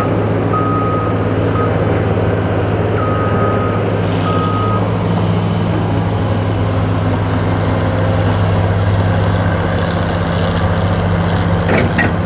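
Caterpillar excavator's diesel engine running steadily. A backup alarm beeps several times in the first five seconds, and a couple of brief knocks come near the end.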